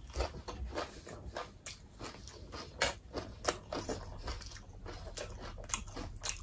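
Person chewing a mouthful of fresh rice-paper spring roll with shrimp: a run of short, wet mouth clicks and smacks at an uneven pace, several a second.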